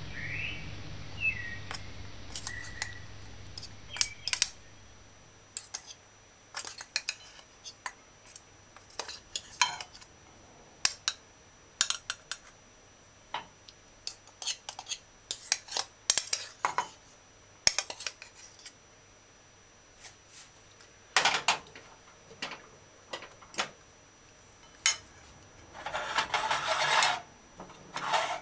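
Serving spoon clinking and scraping against a ceramic dinner plate as rice is spooned onto it: a string of irregular clinks, with a longer scrape near the end.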